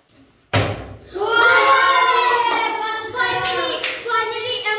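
A sudden thump about half a second in, then children shouting and cheering together in long, drawn-out yells.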